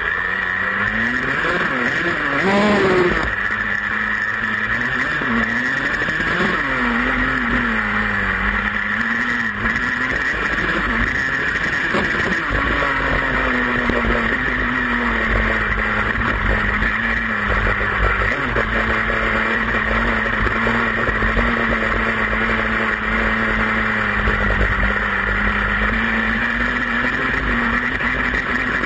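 Dirt bike engine running under the rider, its pitch rising and falling as the throttle is worked, with a sharp rev about two to three seconds in, then holding a steadier note through the second half. Wind rushes over the microphone throughout.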